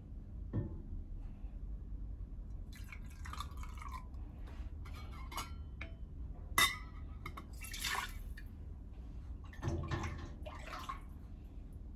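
Hot chicken broth ladled into a stainless steel canning funnel and poured into glass quart jars: several short splashing pours, with one sharp clink of the ladle or funnel against a jar about halfway through, the loudest sound.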